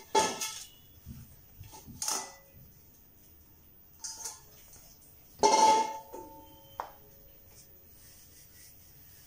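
Hands setting down and pressing dough on a floured countertop, with a few soft knocks. About halfway there is a louder clank of a stainless steel bowl that rings for about a second, followed by a single click.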